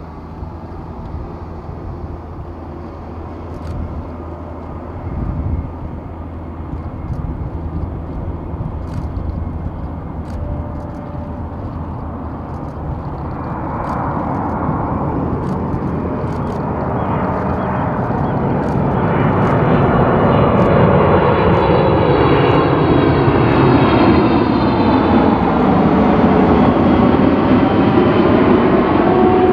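Boeing 777-300ER's two GE90-115B turbofan engines on final approach, growing steadily louder as the airliner comes close. From about halfway through, the rumble is joined by sweeping, shifting tones that rise and fall.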